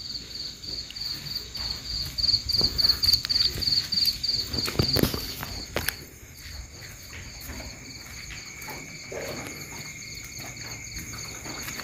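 Night insects chirping: a cricket-like high trill pulsing evenly several times a second, joined by a second steady insect tone about halfway through. Irregular thumps and rustling, loudest between about two and six seconds in.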